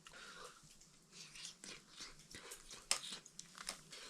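Faint chewing and crunching, as of someone eating a stir-fried noodle dish, with small scattered clicks and one sharper click about three seconds in.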